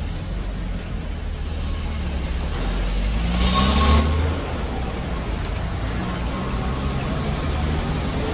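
Motor vehicle running with a steady low rumble, with a louder rush of noise about three and a half seconds in.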